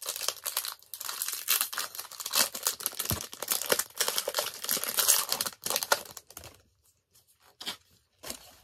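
Pokémon booster pack being torn open, its foil wrapper crinkling in dense crackles for about six and a half seconds, then only a few short rustles.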